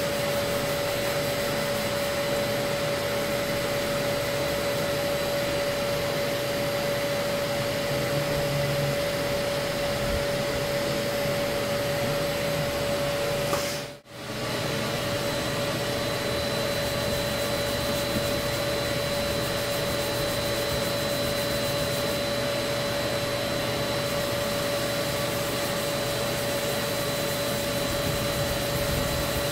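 Dust-extraction vacuum running steadily with a whine, drawing through a hose on a hand sanding block, while sandpaper rubs back and forth over body filler. The sound drops out for an instant about halfway through, then carries on.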